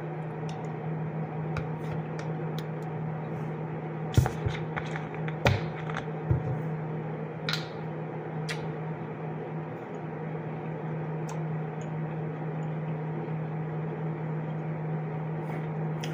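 Eating sounds: a metal spoon clicking and scraping against a clear plastic cup of cottage cheese and fruit, with a few sharp taps about four to nine seconds in, over a steady low hum.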